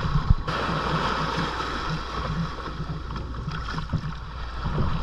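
Water lapping and splashing in the shallows around a beached kayak, with a steady low rumble underneath and a couple of small knocks just after the start.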